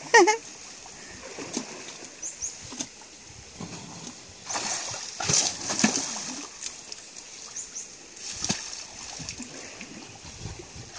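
Asian elephant wallowing in a muddy pool, splashing and sloshing the water with its trunk and body in irregular bursts, the loudest about four to six seconds in and another near eight and a half seconds.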